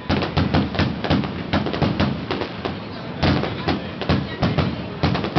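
Fireworks going off: a rapid, uneven string of sharp bangs and crackles, with a louder volley a little past three seconds in.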